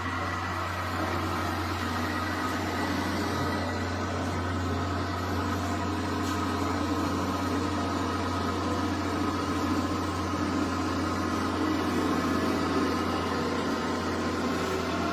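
Radio-controlled scale construction machines running: a steady whine of small electric motors and gearing over a constant low hum.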